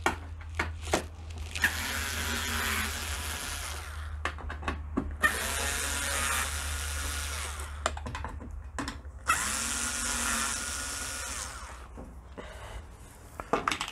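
Cordless screwdriver backing out the Torx T15 screws from a dishwasher door: three runs of two to three seconds each, with sharp clicks between them.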